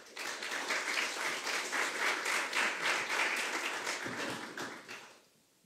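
Audience applauding with many people clapping, the applause dying away near the end.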